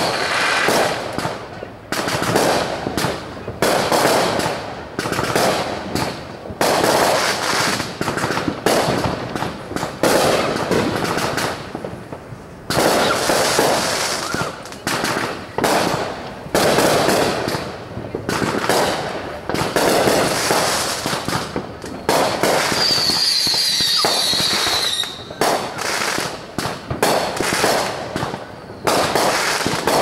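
Fireworks going off: a dense, nearly unbroken run of bangs and crackles with only brief lulls. A high warbling whistle sounds for about two seconds a little past the middle.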